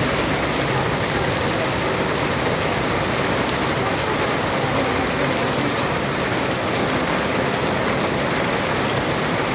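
Heavy rain pouring down on a paved street, a steady, dense hiss of water hitting the road and pavement.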